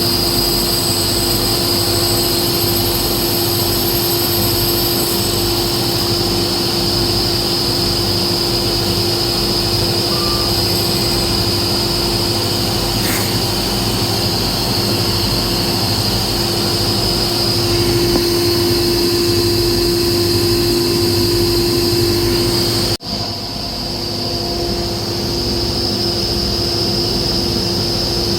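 A motor running steadily with a constant whine and no change in speed, broken by a sudden brief dropout near the end.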